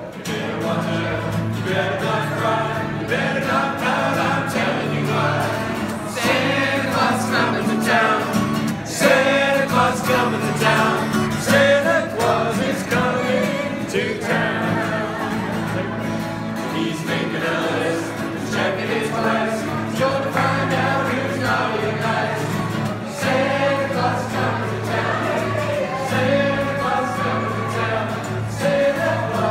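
A mixed group of men and women singing a Christmas song together, accompanied by strummed acoustic guitars.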